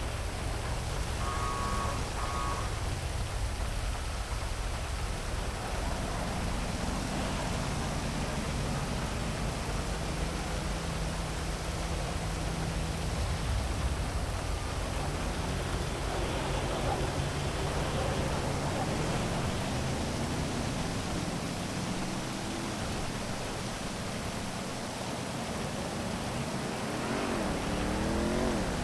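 Heavy rain falling steadily over a city, with the low hum of traffic passing. Near the end a siren starts wailing up and down.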